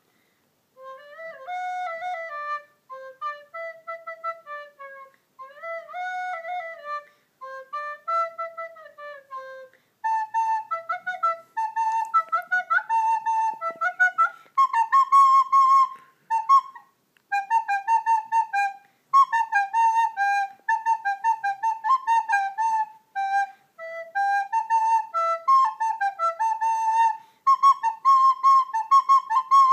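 A flute playing a tune: slow phrases of low notes with pauses between them for the first ten seconds, then a higher, quicker melody of short, detached notes.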